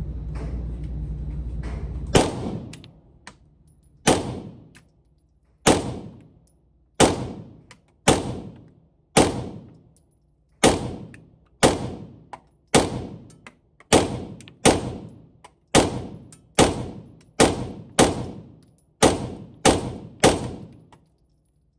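Beretta M9A4 9mm pistol fired about eighteen times, one shot roughly every second, each sharp report followed by a short echoing tail. A low steady rumble runs for about two seconds before the first shot.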